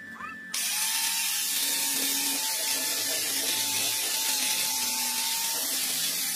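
Corded angle grinder running with its disc held against a rusty steel pipe, a steady loud hiss over a faint motor whine, starting abruptly about half a second in.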